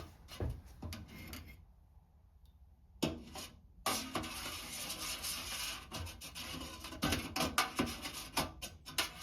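Scraping and rubbing inside a can of carburetor chem-dip cleaner as it is searched by feel for stray carburetor parts, with small clicks and rattles. It pauses briefly about two seconds in, then resumes.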